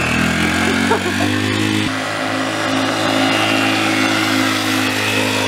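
Dirt bike engine running at a fairly steady throttle as the rider rides by and pulls a wheelie, its note shifting a little about two seconds in.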